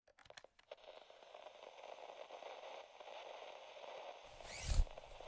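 Logo-intro sound effect: a few faint clicks, then a low crackling static, then a swelling whoosh with a low boom about four and a half seconds in.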